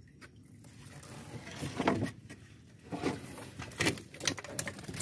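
Wire-mesh fish trap being handled in a wooden boat: a few scattered rattles, knocks and rustles of the mesh and frame.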